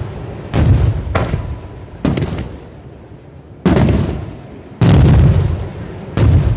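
Aerial firework shells bursting in a series of about seven loud booms over six seconds, each sudden bang trailing off in a rolling rumble of echo.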